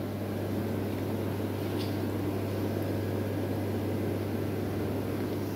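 Steady low hum with a faint hiss from equipment running in an aquarium room, unchanging throughout.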